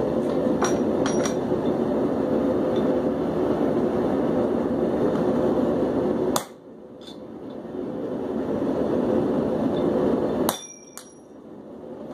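Propane forge burner running with a steady rushing noise, with a few light metal clinks near the start. The noise cuts off abruptly twice, about six and a half and ten and a half seconds in, each time building back up gradually.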